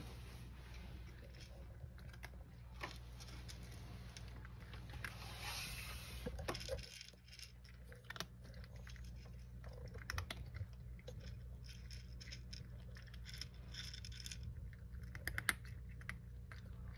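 A cat eating dry kibble from a wooden tray: faint, irregular crunching and small clicks of the pellets against the dish.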